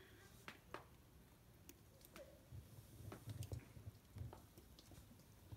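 Near silence, with faint scattered clicks and soft low thumps.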